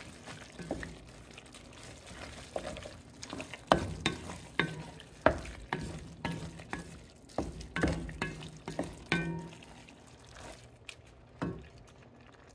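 Wooden spatula stirring sausage, fennel and onion in an enameled cast-iron Dutch oven, with sharp knocks and scrapes against the pot as the mixture sautés with a faint sizzle. The knocks come thick through the middle and thin out near the end.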